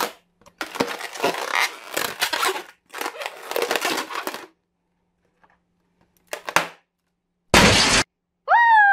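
Latex of a long orange modelling balloon squeaking and rubbing as hands squeeze and twist it for several seconds, then one loud pop as the balloon is burst with a pin. A falling pitched tone begins just before the end.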